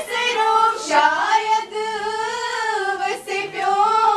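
A child singing unaccompanied, holding long notes that glide up and down in pitch.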